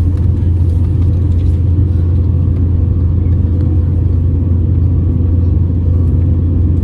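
Steady low rumble of an airliner's jet engines and airflow, heard from inside the passenger cabin.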